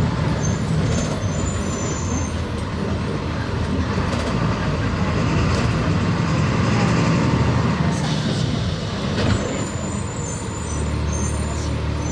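Volkswagen 17.230 EOD bus's diesel engine running, with road noise; the engine note shifts a few times, steadying again near the end, and a short louder sound comes about nine seconds in.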